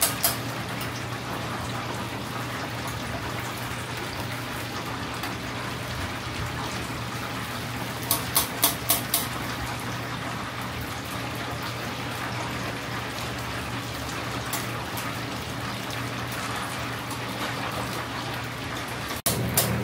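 Chicken karaage deep-frying: hot oil sizzling and bubbling steadily in the fryer, over a low steady hum. About eight seconds in comes a quick run of sharp metal clicks as tongs lift pieces out of the oil.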